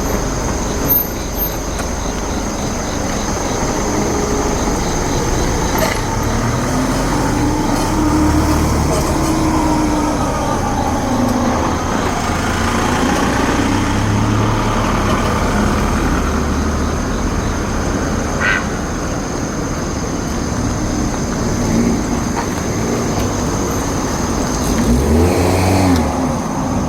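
Steady road traffic noise: vehicles passing one after another, their rumble rising and falling as each goes by.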